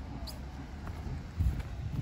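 Outdoor ambience with low gusts of wind buffeting the microphone, the strongest about one and a half seconds in.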